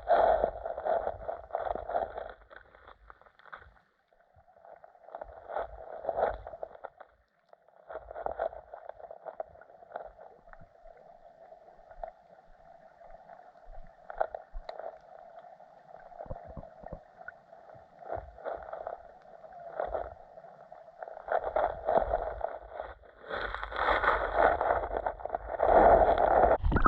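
Fishing reel being cranked in stretches as a hooked bass is played in, pausing briefly a few times and growing louder near the end.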